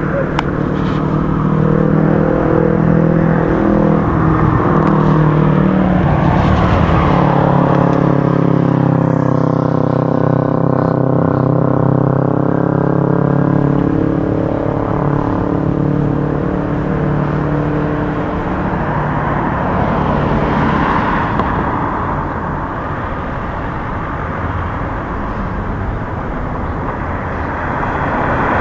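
Road traffic: motor vehicles running and passing, with one engine's steady hum dipping in pitch and rising again around the middle.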